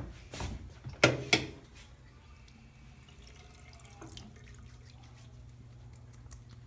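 Water running from a bathroom sink tap as hands and face are washed, faint and steady. Two sharp knocks come about a second in.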